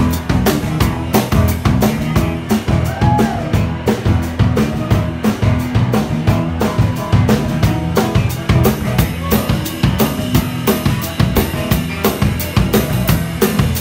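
Live band playing a steady, driving groove: a drum kit with kick and snare keeping a dense beat, under an electric bass line.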